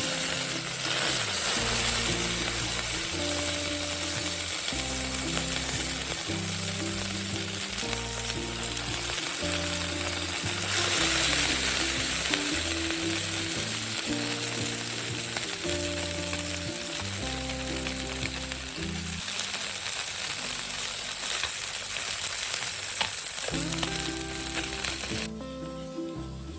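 Fish frying in hot oil with a steady sizzle, over background music with a plodding, stepping bass line. The sizzle cuts off suddenly near the end.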